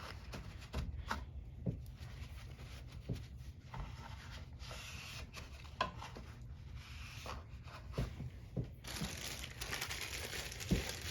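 Hands handling the air filter parts of a Honda HR194 lawn mower: crinkling and rustling with scattered light knocks and clicks, and a denser rustle over the last couple of seconds.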